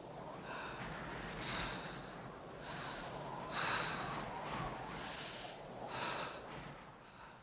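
Heavy, breath-like puffs, about one a second, over a low steady hum.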